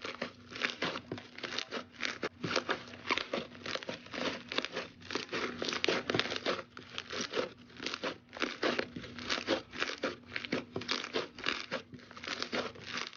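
Slime being squeezed and pressed by hand, giving a dense, irregular run of crackles and pops, several a second.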